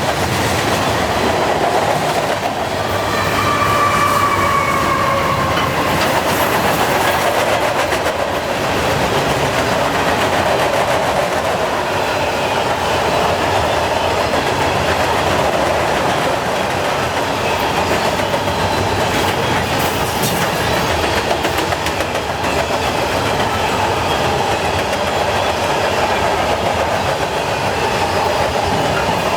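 Freight cars of a long CN freight train rolling past: a steady rumble of steel wheels on the rails. A faint metallic ringing from the wheels rises briefly about three seconds in.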